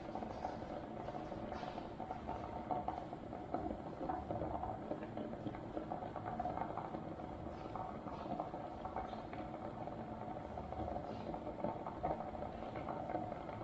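Electric kettle heating water with eggs in it: a steady bubbling rumble of water coming to the boil, with small scattered ticks.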